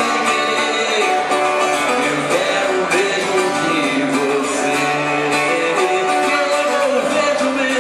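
Live pop-rock music: a man singing into a microphone over guitar accompaniment.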